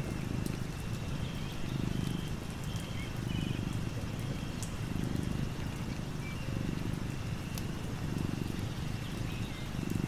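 Domestic tabby cat purring, swelling and fading with each breath about every one and a half seconds. Light rain hisses behind it with scattered drops ticking, and faint short high chirps.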